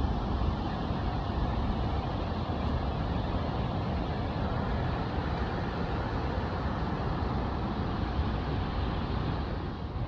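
Steady rush of water pouring over a dam's concrete spillway and churning in the river below, a loud, even noise heaviest in the low end.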